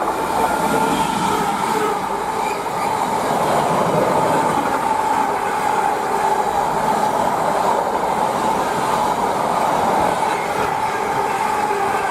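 Freight train passing at speed: a loud, steady rush of wheels on rail with a steady ringing tone above it.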